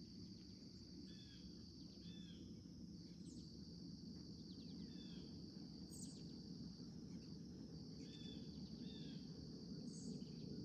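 Faint outdoor birdsong and insects: a steady high cricket-like trill with short bird chirps every second or two over a low background noise.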